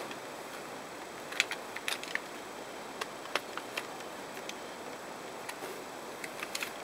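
Scattered light clicks and taps of a precision screwdriver and hands working on the plastic shell of an Xbox One controller, in a few small clusters.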